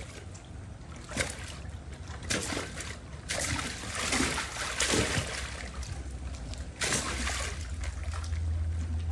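Saltwater crocodile thrashing a hog carcass in a small concrete pool: irregular water splashes and sloshing, a splash every second or so.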